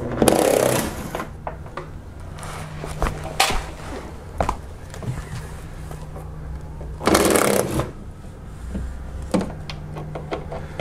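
Handheld power tool running in two bursts of about a second each, at the start and about seven seconds in, spinning out the small 8 mm fasteners of a car's underbody splash shield. Light clicks between the bursts, over a steady low hum.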